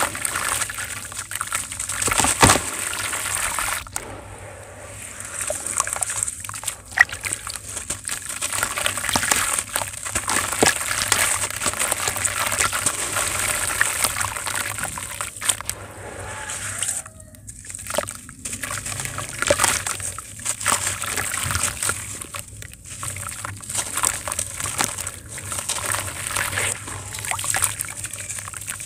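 Hands crumbling chunks of wet white sand into a tub of water: gritty crackling of the breaking sand mixed with sloshing and trickling as grains and water fall back in, with a couple of brief lulls.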